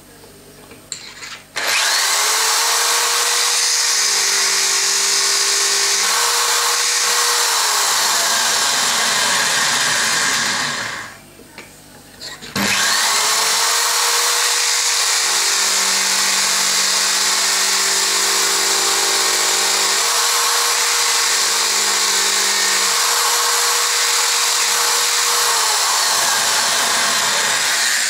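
Corded electric drill spinning a pen-mill trimming bit while a wooden pen blank with a glued-in brass tube is pressed onto it, the cutter scraping the wood and brass square. The motor spins up for a run of about nine seconds, stops briefly about eleven seconds in, then runs again for about fifteen seconds.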